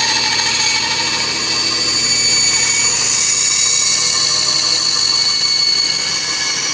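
Porter-Cable 13.625-inch floor bandsaw running steadily, its carbide-tooth blade cutting through an old wooden stick, with a high whine over a steady hiss.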